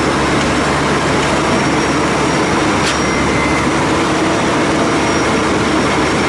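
Ready-mix concrete truck's diesel engine running steadily as wet concrete pours down its chute.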